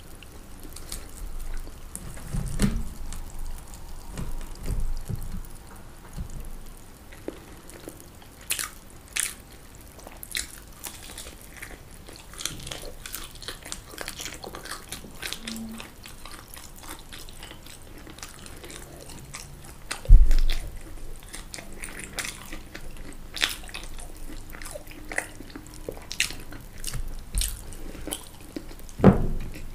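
Close-miked eating: biting and chewing with wet mouth clicks and smacks, broken by a few low thumps, the loudest about twenty seconds in.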